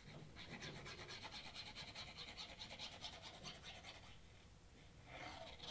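Faint, fast scratching of a craft glue bottle's nozzle dragged along a cardstock tab as a bead of glue is squeezed out, stopping about four seconds in.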